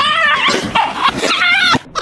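A dog yelping in fright as a box is dropped over it: about three high, arching cries in quick succession that cut off abruptly near the end.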